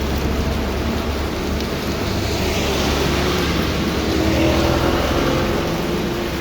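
Heavy rain with strong wind: a steady hiss over a low rumble, with a faint hum that swells and peaks about four seconds in.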